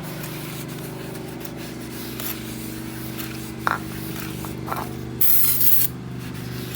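Aerosol can of brake cleaner sprayed onto a new brake rotor in one short hiss, under a second long, about five seconds in, with a few light clicks before it.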